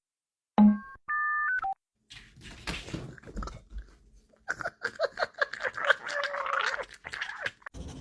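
Wet chewing and lapping, rapid and noisy, typical of a dog eating food. Near the start there is a short thump and then a brief two-tone electronic beep.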